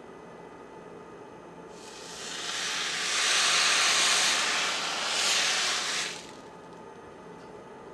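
Water from a wet scouring sponge hissing into steam on a hot electric stove hotplate. The loud hiss builds about two seconds in, swells twice, and cuts off suddenly about six seconds in.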